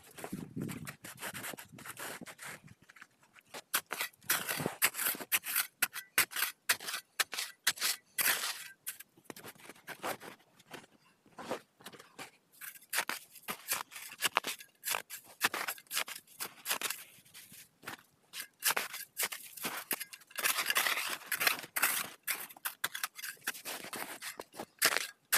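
Irregular scraping and crunching with many short, sharp clicks, busiest about three quarters of the way through.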